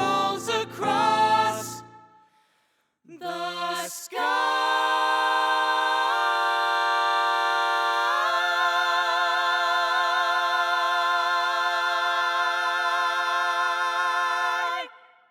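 Unaccompanied voices singing the close of a song: a short phrase, then a long held final chord that climbs in two steps and wavers with vibrato, cutting off near the end.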